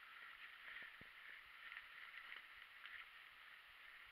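Near silence: a faint steady hiss with a few soft ticks.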